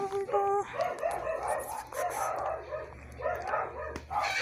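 Husky-type dog whining and vocalising: a drawn-out whine in the first half-second, then a quick run of short, repeated whimpering sounds.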